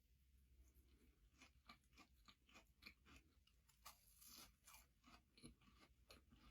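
Faint close-up chewing of crispy fried chicken: many quick, irregular crunches.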